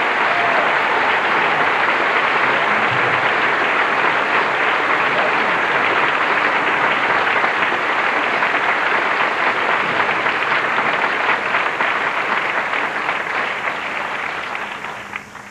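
Audience applauding steadily, the applause dying away near the end.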